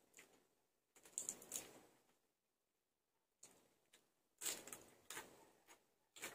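Close-miked eating sounds: chewing with quick, crackly crunches in two bouts, one about a second in and a longer one from about halfway to the end.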